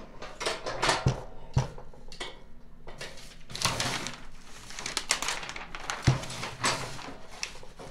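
Metal knocking and scraping as the hexagon tube and its parts are worked back and forth and pulled out of a Snapper rear-engine rider's steel rear-end housing, with a few sharp knocks among the rattling.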